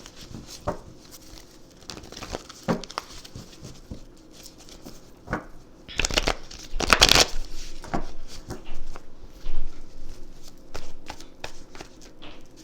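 Tarot cards being handled: scattered light snaps and clicks with paper-like rustling, and a louder rustle about six to seven seconds in.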